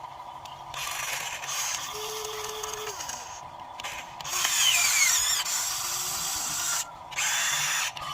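Radio-controlled Cat excavator model working, its motors whining like a small power tool in three bursts that start and stop abruptly as the machine moves. The middle burst is the loudest and carries a falling whine.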